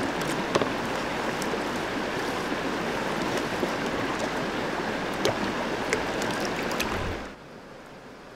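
Green plastic gold pan of red dirt being worked in shallow creek water: steady water sloshing and running, with occasional small sharp clicks. About seven seconds in the sound drops suddenly to a quieter, steady flow of creek water.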